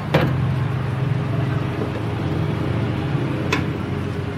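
Two sharp metal clacks, one just after the start and one about three and a half seconds later, typical of a steel spatula striking a flat iron griddle. Under them is a steady low rumble.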